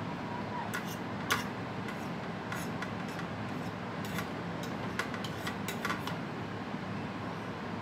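Metal fork clicking and scraping against a ceramic salad bowl in a handful of light, sharp clicks, the loudest about a second in and several more close together near the end, over a steady low hum.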